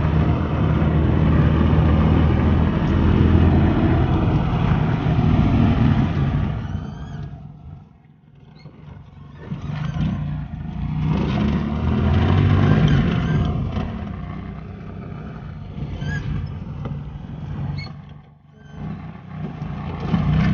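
Motor vehicle engine and road noise rising and falling: loud at first, fading away about seven or eight seconds in, swelling again, then fading once more near the end.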